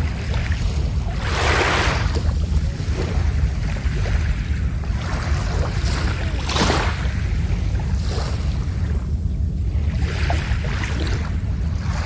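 Sea waves washing onto a sand beach, with a fresh surge of hissing wash about every four to five seconds. A steady low rumble of wind on the microphone lies underneath.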